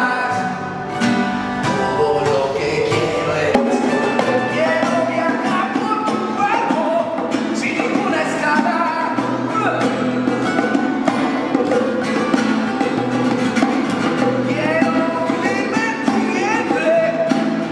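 Live acoustic rock song: two steel-string acoustic guitars strumming with bongos played by hand, and a male voice singing over them.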